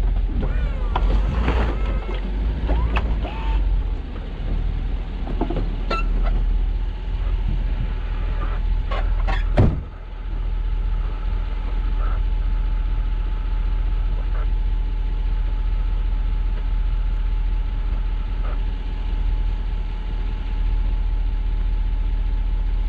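Plow truck engine running with a steady low rumble, with a few sharp knocks and creaks about six and ten seconds in.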